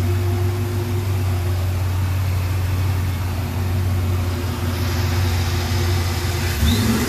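Ford SVT Lightning's supercharged 5.4-litre V8 idling steadily while warming up, under the even rush of its newly fitted electric cooling fans. Near the end the engine note steps up as it starts to be revved.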